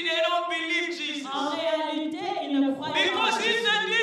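Church congregation singing together unaccompanied, many voices overlapping.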